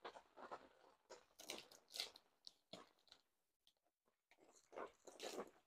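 Sheet of paper crinkling and rustling as it is pressed and folded by hand around a bike frame tube, in faint, irregular short bursts.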